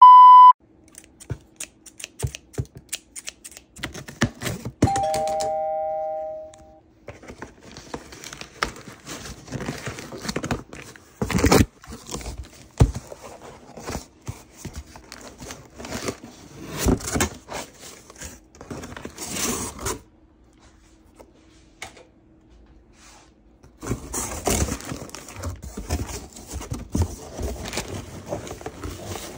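A short loud beep, then about five seconds in a doorbell chimes two falling notes. After that a cardboard box is torn open, with packing tape ripping and cardboard scraping, and plastic air-pillow packing crinkles as it is handled.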